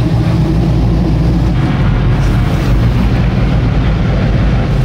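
Motor yacht's engine running steadily, a loud, even low drone.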